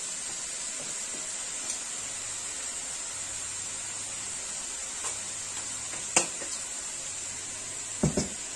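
Steady faint hiss of fern greens frying in a wok over a gas burner, broken by a few sharp clicks of a spoon against a plastic sugar jar. The loudest click comes about six seconds in, followed by a double knock near the end.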